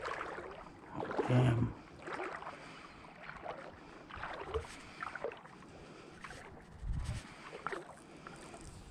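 Quiet shoreline sounds: light water lapping and small clicks and rustles from handling a fishing rod. A short, low voiced hum comes about a second and a half in, and a dull low thump late on.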